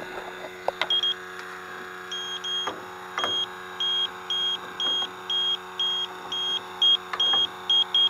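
Electronic refrigerant leak detector beeping at about two beeps a second as its probe is run along an evaporator coil. The beeps come faster near the end, the detector starting to register refrigerant. A steady hum runs underneath.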